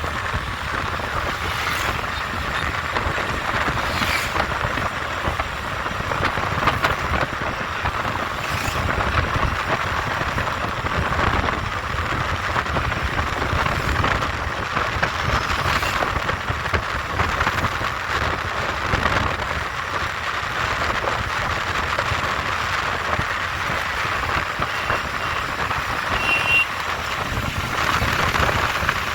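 Steady road traffic noise: vehicles running and passing, with a brief high beep near the end.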